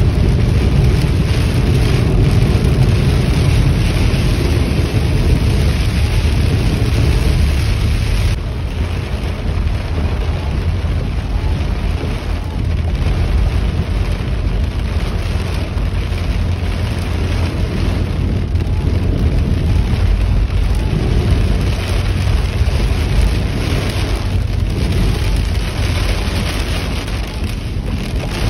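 Very heavy rain pounding on a car's roof and windshield, heard from inside the cabin, over the low rumble of the car driving on a waterlogged road. The downpour eases a little about eight seconds in.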